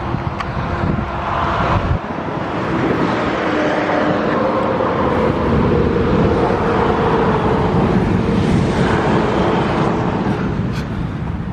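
Road traffic passing on a busy highway. One vehicle goes by in the first two seconds, then a longer, louder pass of tyre and engine noise builds to a peak in the middle and fades near the end.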